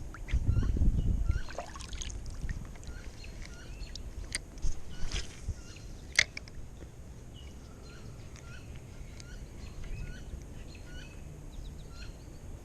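Small birds chirping in short, repeated notes, over a steady low background. A loud low rumble comes in the first second and a half, and a few sharp clicks fall around the middle.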